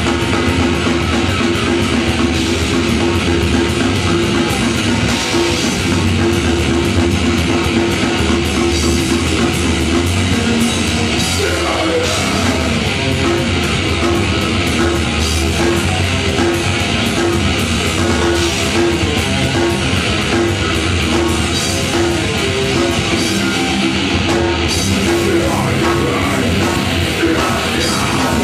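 Live heavy rock band playing loudly: distorted electric guitars, bass and a drum kit together, dense and unbroken.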